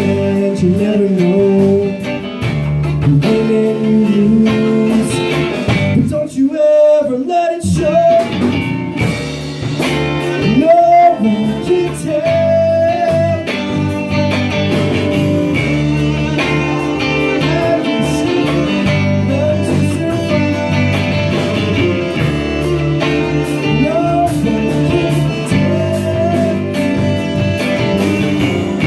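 Blues-rock band music: a guitar-led melody with bending notes over bass and drums. The low end drops out briefly about six seconds in, then the full band comes back.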